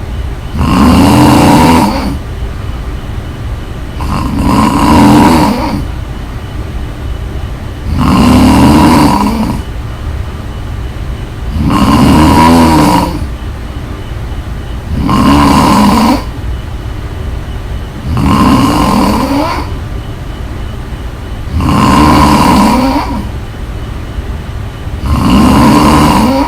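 A woman snoring loudly in a steady rhythm: eight long snores, one about every three and a half seconds, with quieter breathing between them.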